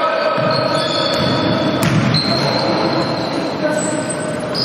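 Basketball game on a wooden gym court: high squeaks of sneakers on the floor, running feet, and one sharp knock about two seconds in, with voices in the hall.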